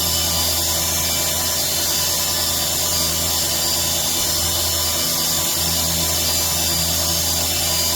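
DIY CNC machine running steadily, its motors keeping up a constant whine with several steady tones over a hiss.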